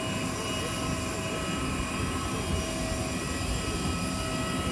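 Steady jet whine and rush of aircraft on an airport apron: several steady high tones over an even roar of noise.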